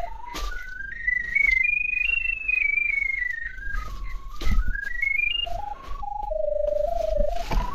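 Pipe locator receiver sounding its single electronic tone as it is swept over the ground to find the drain camera's sonde. The pitch steps up and down in small jumps: it climbs high about two seconds in, sinks, jumps up again past five seconds, then drops low near the end. A pitch that changes with signal strength is typical of this kind of locator.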